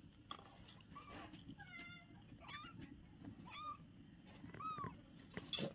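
Very young kittens mewing: about five short, high, thin mews that rise and fall in pitch, spread across a few seconds. Light clicks and rustles come from the cardboard box they are scrambling in, with a sharper click near the end.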